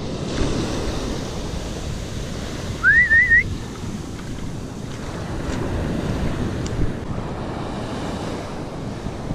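Ocean surf washing up the beach, with wind buffeting the microphone. About three seconds in comes one short whistle that rises and then wavers.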